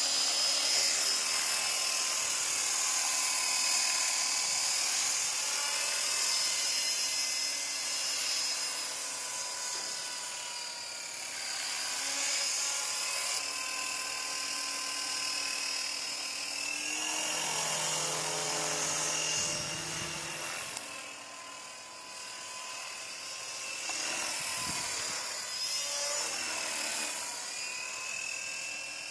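Art-Tech Falcon 400 CCPM electric RC helicopter in flight: a continuous high-pitched whine from its motor and rotor, sliding up and down in pitch and loudness as it flies about.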